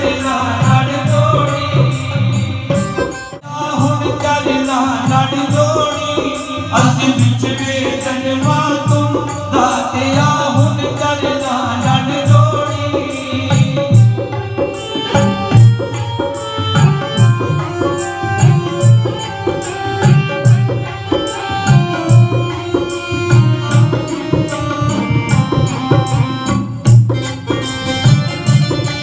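Devotional music with a steady tabla drum rhythm under melodic instruments.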